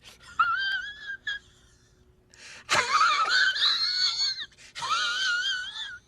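A high-pitched, wheezing, wailing voice in several breaths, its pitch wobbling quickly. The longest and loudest stretch comes about halfway through.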